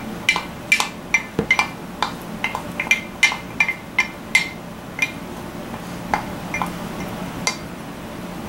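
Spoon clinking and scraping against a glass measuring cup as the last of the dark molasses is scraped out into the bean pot: a quick, irregular run of light clinks with a short ring, thinning out after about five seconds.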